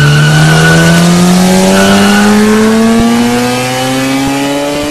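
Racing-car engine sound effect, one long steady pitch rising slowly as if accelerating, with two short high squeals in the first two seconds.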